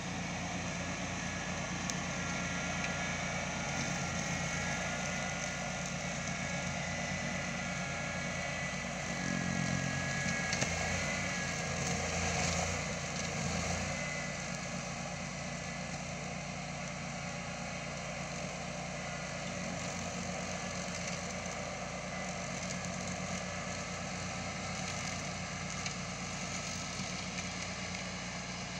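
Engine of a 24 hp 4x4 ride-on mower running steadily as the mower drives over rough grass, with a thin whine over it in the first half. The engine sound grows louder and heavier for a few seconds midway, then settles back.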